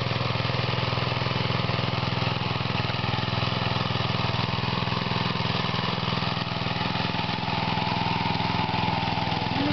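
Small engine of a walk-behind mini rotovator running steadily as its tines till soil.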